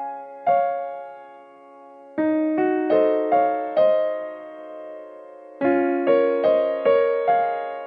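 Background music: a slow, gentle piano piece, single notes and chords struck and left to fade, with no beat.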